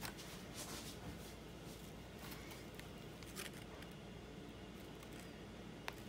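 Faint crinkling of a plastic piping bag being squeezed to pipe buttercream, over quiet room tone, with a few soft clicks; the sharpest click comes near the end.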